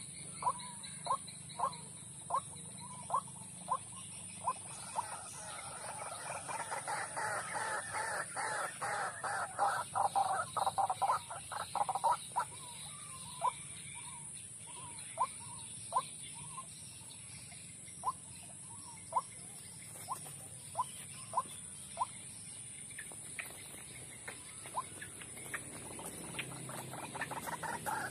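White-breasted waterhens calling: a monotonous series of short croaking notes, about two a second, that thickens into a fast overlapping chorus from about five seconds in, slows again past the middle, and quickens once more near the end.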